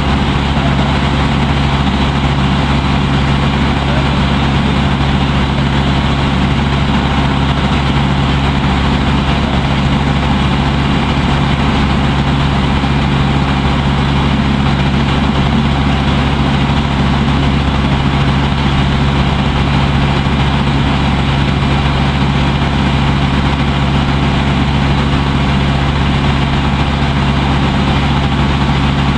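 Water-taxi boat engine running steadily, heard from on board: a loud, even drone with a deep hum that does not change.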